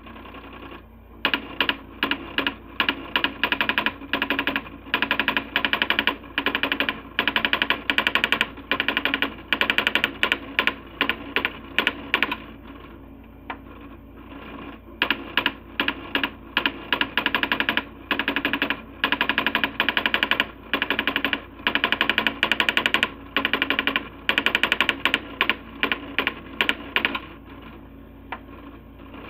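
Coleco Adam SmartWriter daisy wheel printer printing high-resolution graphics, its print hammer striking in rapid runs of clicks, with a pause of a couple of seconds about halfway through and a shorter one near the end.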